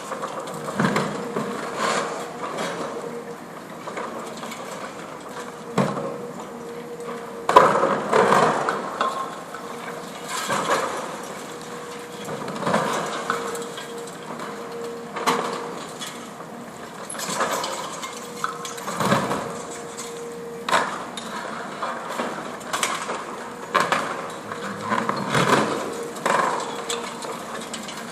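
Excavator with a hydraulic demolition cutter breaking concrete pillars: irregular cracks and crunches of concrete and falling rubble every few seconds over the machine's steady hum, the loudest crash about seven seconds in.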